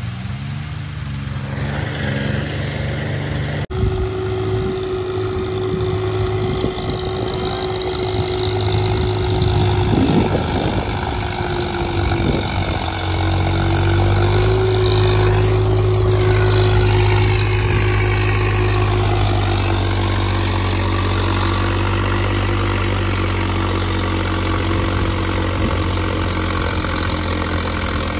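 Swaraj tractor's diesel engine running steadily under load as it works through deep, wet, muddy soil, its tyres clogged with mud. The engine note grows somewhat louder about halfway through.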